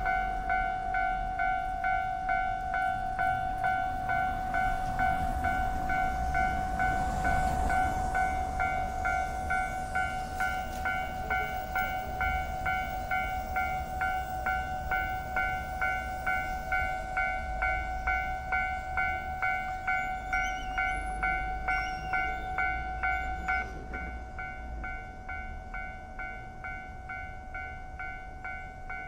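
Japanese railroad crossing warning bell clanging about twice a second, with the low rumble of a train over it. About 24 seconds in the rumble stops and the bell carries on more quietly.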